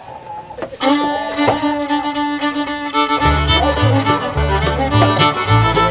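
Instrumental background music: a tune starting about a second in, with a low rhythmic bass line joining about three seconds in.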